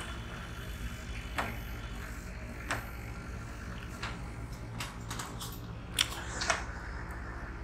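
Whiteboard duster rubbing across the board, with a few scattered light clicks and knocks over a steady low room hum.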